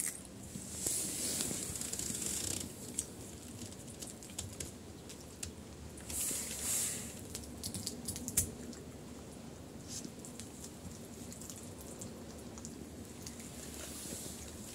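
A raccoon eating fish, with small wet chewing and smacking sounds and light clicks. Two brief hissing rustles come about a second in and again about six seconds in.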